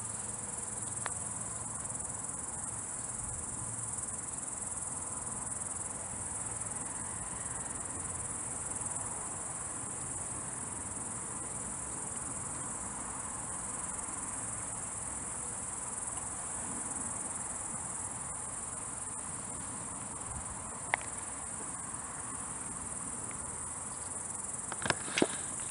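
Crickets trilling in a steady, high, unbroken chorus. A single sharp click comes late on, and a few more come near the end.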